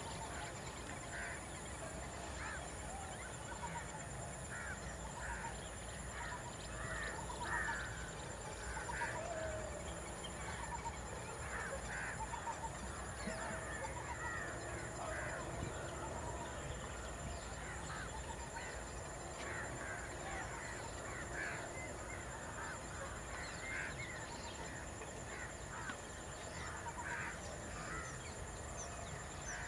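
Wild birds chirping and calling over and over in short notes, over a steady high-pitched whine.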